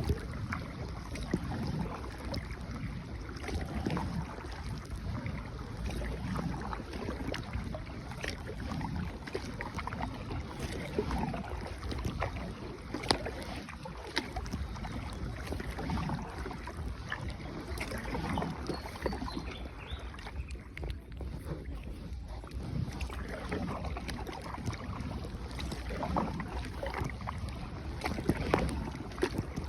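Boat being paddled on a river: repeated paddle strokes in the water over a steady wash of water noise, with an occasional knock.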